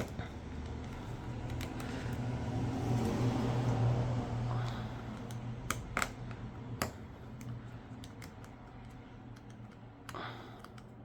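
Small, irregular clicks and taps of a screwdriver and fingers working on a smartphone's mid-frame as its screws are taken out, a few sharper clicks about six to seven seconds in, over a low steady hum.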